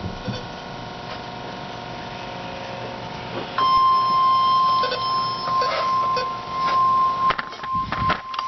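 NOAA weather radio alert tone: a single steady tone of about 1 kHz starts about three and a half seconds in and is loudest until near the end, where it turns weaker and broken. This is the warning alarm tone that comes before a tornado warning broadcast. Before the tone there is a steady hum.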